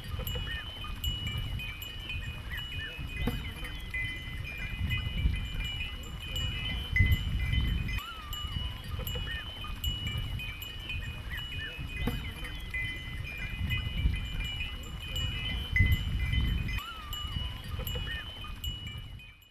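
A flock of goats and sheep milling about, with a few brief calls over a low rumbling noise and a steady high-pitched ringing.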